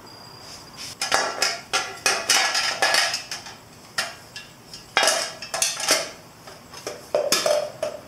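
Irregular clinks, clicks and rattles of hands handling motorcycle wiring connectors and a chrome headlight, in clusters after about a second.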